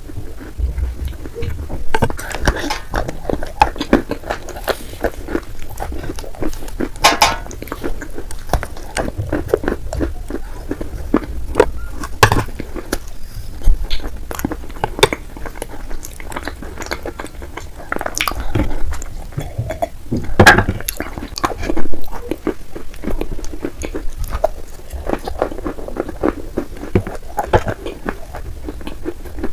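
Close-up sound of someone chewing dry Turkestan clay chunks with wet clay paste: irregular crunches, sharp crackling clicks and wet mouth sounds, with a few louder crunches scattered through.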